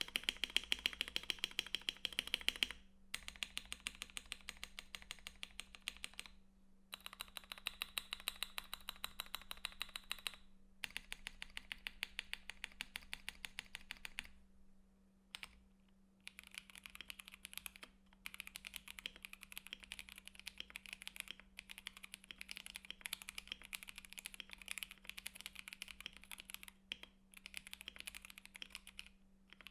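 Typing on a KBD67 Lite mechanical keyboard with stock, unlubed Gateron Black KS-3x47 linear switches on a polycarbonate plate, under Akko ASA-profile keycaps. Rapid keystrokes come in runs of a few seconds broken by short pauses, over a faint steady hum.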